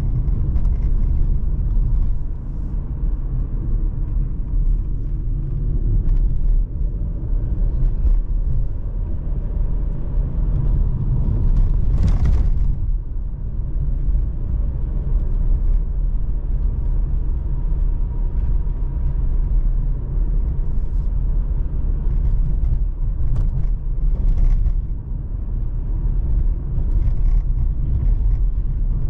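A 2020 Mercedes C43's 3.0-litre twin-turbo V6 and road noise while driving: a steady low rumble, with a brief rushing noise about twelve seconds in.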